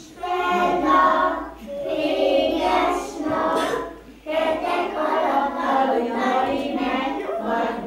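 A group of young children singing a song together, with a woman's voice singing along, in phrases broken by short pauses.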